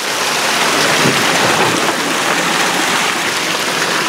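Steady rush of shallow water flowing along the floor of a round culvert tube, heard from inside the tube.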